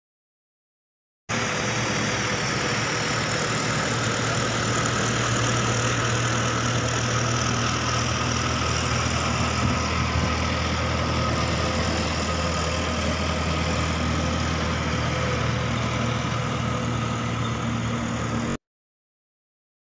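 Road traffic with a steady low engine hum. It starts abruptly about a second in and cuts off suddenly near the end.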